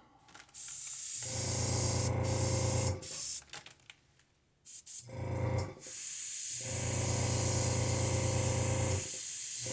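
Airbrush blowing in several bursts of a couple of seconds each, a steady hiss over the low hum of the air compressor running, as leftover paint is sprayed out of the gun.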